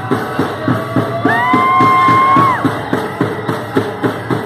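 Powwow drum group playing for the chicken dance: a large drum struck in unison at an even beat of about three strokes a second, with singing. A little over a second in, a single high voice slides up and holds one long note for about a second and a half before falling away.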